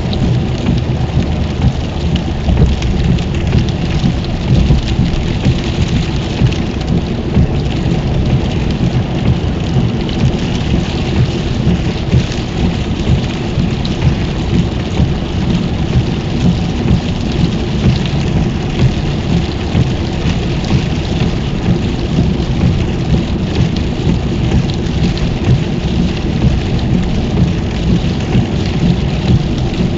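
Heavy rain pattering on a car's roof and windscreen, heard inside the cabin, over a steady low rumble of tyres on a wet motorway.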